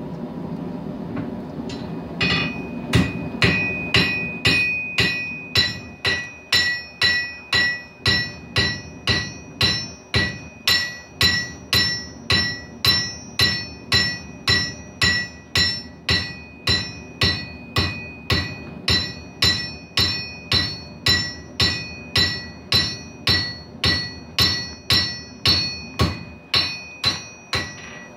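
Hammer blows on steel over an anvil, a steady run of about two strikes a second starting about two seconds in, each with a bright metallic ring. A steady rushing noise runs underneath.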